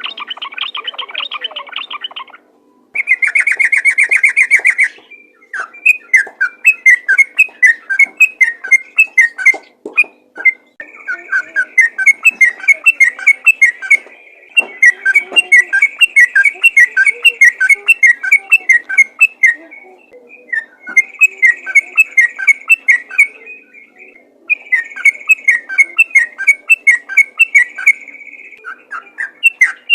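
Sooty-headed bulbul singing its rapid-fire song. A harsh buzzy chatter opens, then a dense trill, then long runs of quick whistled notes, several a second, broken by short pauses.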